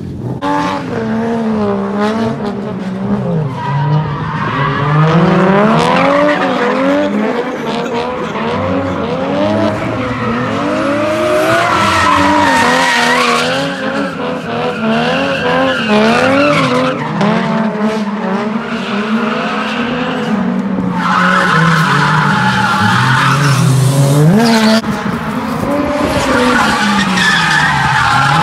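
Drift cars with 1JZ inline-six swaps, a Lexus IS300 among them, sliding under power. The engines rev up and fall back over and over as the drivers work the throttle. Tires squeal and skid, loudest about twelve seconds in and again a little past twenty seconds.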